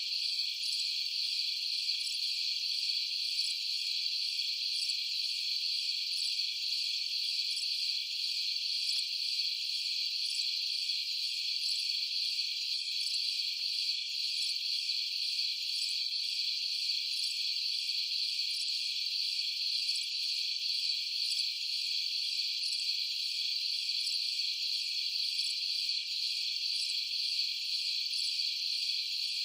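A dense chorus of crickets trilling, high-pitched and steady without a break.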